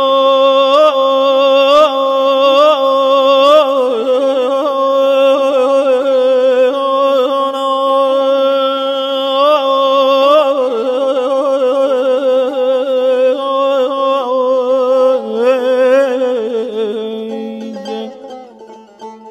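Instrumental passage of a Persian song: a held drone under an ornamented, wavering melody, fading out near the end.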